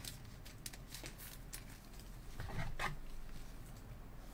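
Faint clicks and rustles of gloved hands handling trading cards and a clear plastic card holder, with a slightly louder bit of handling about two and a half seconds in.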